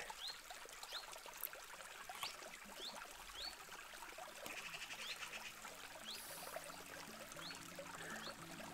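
Faint riverside ambience: a low wash of flowing river water, with a bird giving short rising chirps over and over at uneven intervals.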